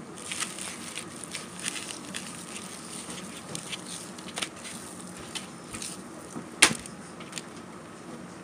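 Sukiyaki pot heating on a gas stove, giving scattered light crackles and ticks over a steady low hum, with one sharp click about two-thirds of the way through.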